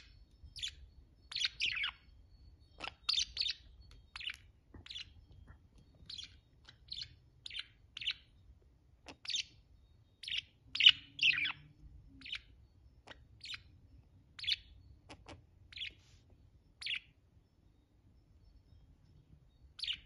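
Budgerigars chirping: short, high chirps, singly or in quick pairs, at an uneven pace, with a pause of a couple of seconds near the end.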